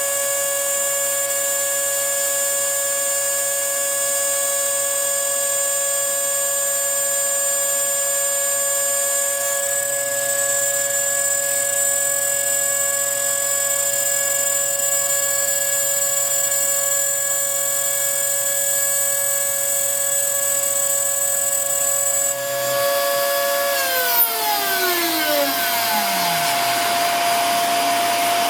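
Spindle motor of a small homemade CNC router running at a steady speed with a high whine. About 24 seconds in it winds down, its pitch falling over a few seconds as it coasts to a stop. A steady rushing noise and a single hum carry on underneath.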